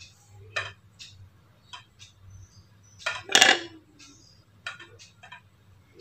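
Light clinks and knocks of a kitchen knife on a wooden board and of hands in an aluminium tray while melinjo skins are handled. The loudest knock comes a little over three seconds in.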